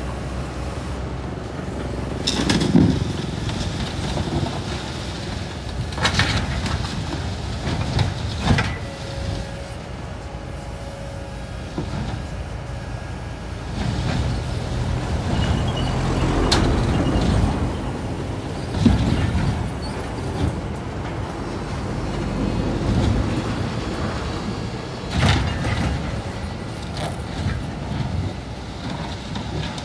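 Kobelco hydraulic excavator's diesel engine running under load as it shoves a steel sand-dredge pontoon over dirt. Every few seconds there are loud scrapes and clanks of the steel hull grinding over the ground.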